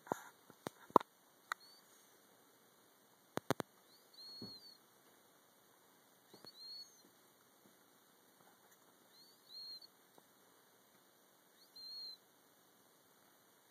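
A sleeping cat whistling through its nose as it breathes: a short, high, arched whistle with a soft snore-like breath, repeating about every two and a half seconds. A few sharp clicks come in the first four seconds.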